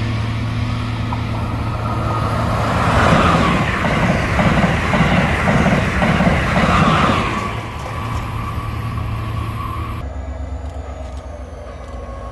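Amtrak Acela high-speed trainset passing close at speed: a rush of wheel and air noise that swells to its loudest in the middle, with rapid rhythmic thumps as the cars go by, then fades away. Near the end, after a cut, CSX diesel freight locomotives rumble as they approach.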